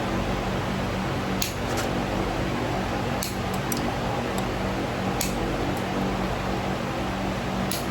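A steady mechanical hum and hiss like a running fan, with a few faint, light clicks scattered through it.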